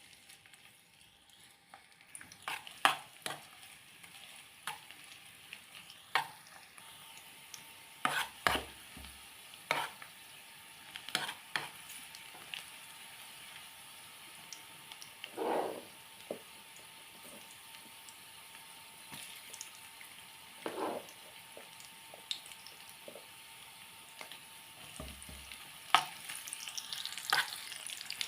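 Food sizzling in hot oil in a pan while it is stirred, with a utensil scraping and clicking against the pan at irregular intervals.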